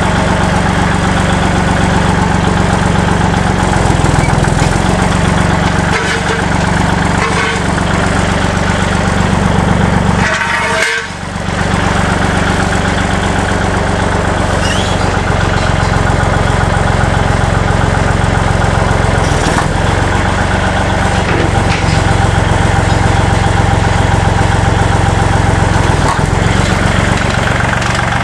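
Kubota tractor's diesel engine running steadily. Its pitch shifts briefly a few times, with one short dip near the middle.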